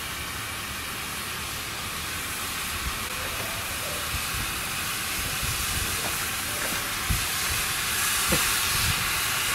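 Ammonium dichromate volcano decomposing after ignition: a steady hiss that slowly grows louder as the reaction throws up ash, with a few faint knocks in the last few seconds.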